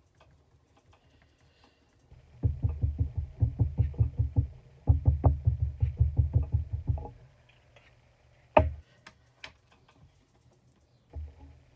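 Small ink cube dabbed rapidly onto a rubber stamp on a glass craft mat, inking the stamp: quick light knocks, about eight a second, in two runs of about two seconds each, then a single sharper knock near the end.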